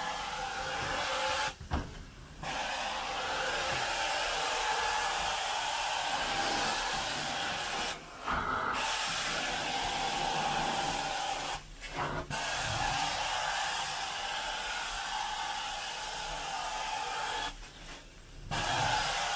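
Carpet-cleaning extraction wand working over carpet: a steady rushing hiss of suction and hot-water spray. The hiss drops out briefly four times.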